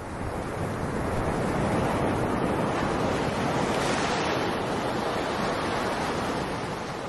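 Ocean surf washing onto a beach: a steady rush of waves that swells in over the first second and starts to fade near the end.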